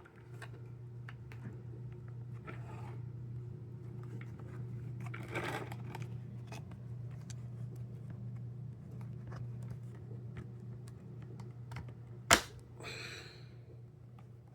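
Plastic housing of a Hoover vacuum cleaner being pried apart by hand: scattered small clicks and scrapes, then one sharp snap about twelve seconds in as a latch gives way. A steady low hum runs underneath.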